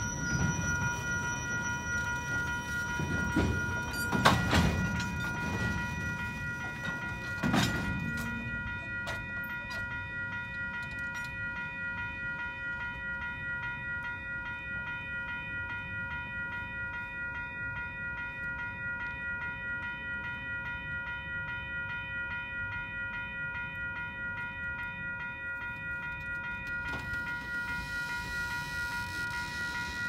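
Level-crossing warning bell ringing steadily as double-stack container well cars roll slowly over the crossing, with the low rumble of the wheels. Two loud metallic bangs from the passing cars come about 4 and 7.5 seconds in.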